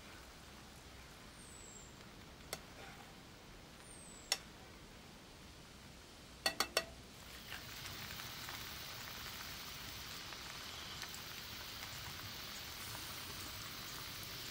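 Noodles and vegetables frying in a pan over a charcoal fire. There are a few sharp metal clicks of tongs on the pan, three in quick succession about halfway through, and then a steady sizzle sets in and holds.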